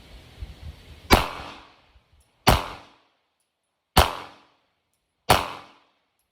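Glock 19 9mm pistol fired four times at a slow, even pace, about one and a half seconds apart, each shot followed by a short echo.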